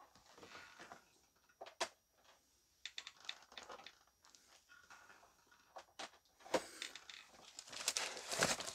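Hard plastic CGC graded-comic slabs being handled and set down: scattered sharp clicks and light knocks with faint rustling. Near the end, a plastic bag starts to rustle.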